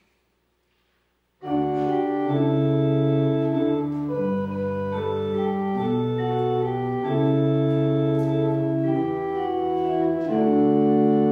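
Church organ playing slow, held chords, starting abruptly about a second and a half in after near silence.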